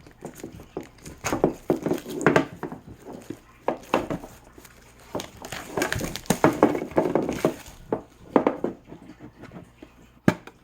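A metal collector's tin being opened and its contents handled: irregular clicks, knocks and rustles in two busy spells.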